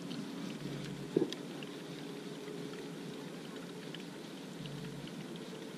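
Light rain pattering on the lake and a plastic kayak: a steady soft hiss with scattered small drop ticks, and a single short knock about a second in.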